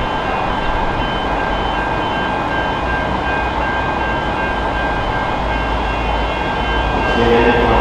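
Approaching diesel-electric locomotives (an N class and an A class) rumbling steadily. A rapidly repeating high ringing tone sounds over the rumble, and the engine note grows louder near the end as the train nears.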